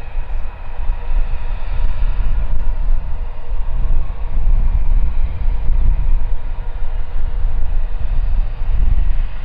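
Airbus A320-232's IAE V2500 turbofan engines on landing approach, a steady rushing jet noise with faint steady whining tones. Heavy, gusting wind rumble on the microphone runs under it.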